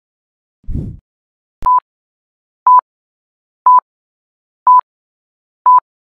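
Five short electronic beeps, all at the same pitch and evenly spaced about one a second, after a low thump about a second in.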